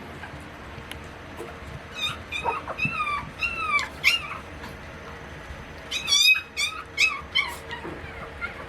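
Chihuahua puppy whining in short, high-pitched cries: a run of several about two seconds in and another about six seconds in.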